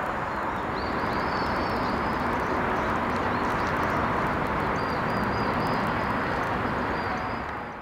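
Steady outdoor background noise with short, high bird-like chirps repeating through it, fading out near the end.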